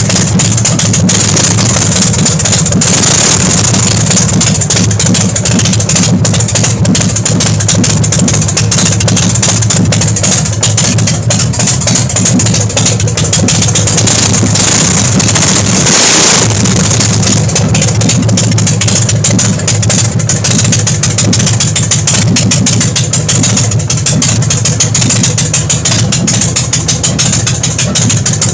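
Big Dog Ridgeback motorcycle's V-twin engine idling steadily while warming up after a cold start, with a brief change in its note about sixteen seconds in.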